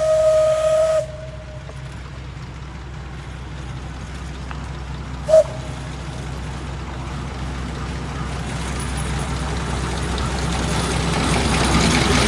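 Steam whistle of the Alishan Forest Railway's Shay No. 25 geared steam locomotive: a long blast that cuts off about a second in, then one short toot about five seconds in. Under it a low rumble and hiss grows louder toward the end.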